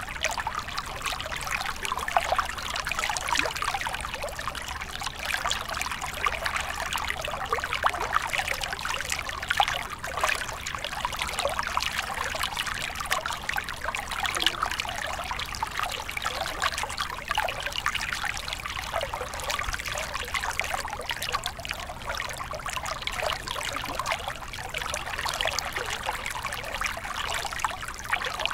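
Steady trickling, splashing run of water with a fine crackle of bubbles and drips, typical of an aquarium's circulating water.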